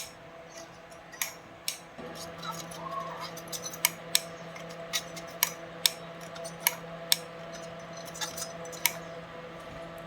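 Irregular sharp clicks and taps of small hand tools and parts being handled, about a dozen in all, over a steady electrical hum that sets in about two seconds in.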